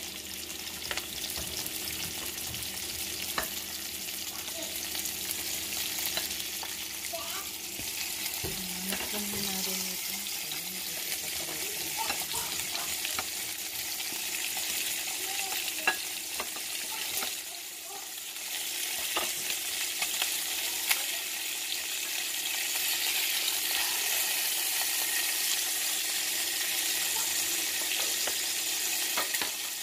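Raw chicken pieces frying in hot oil in a nonstick frying pan: a steady sizzling hiss, with a few light clicks and knocks as pieces go into the pan.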